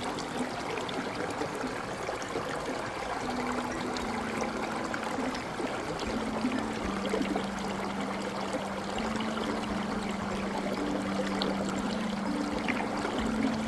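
Waterfall and stream water rushing and splashing steadily. Low, soft held notes shift in pitch every few seconds underneath.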